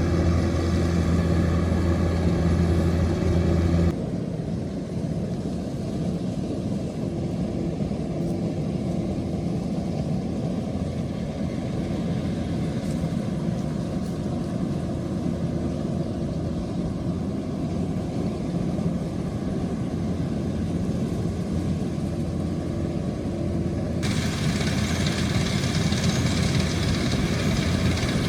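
Kubota DC-105X combine harvester's diesel engine running steadily. Its sound turns duller about four seconds in and brighter again near the end.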